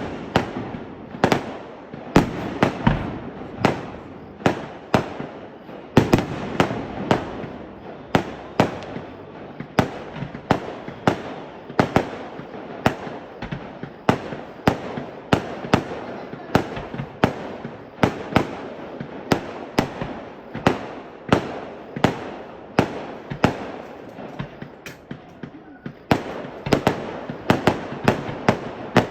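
Fireworks bursting in a continuous run of sharp bangs, about two a second, with crackling between them. The bangs ease off briefly near the end, then come back thicker and faster.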